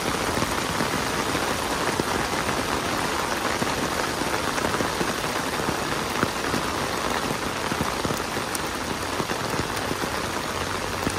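Heavy rain falling steadily onto a flooded street, spattering on the standing water.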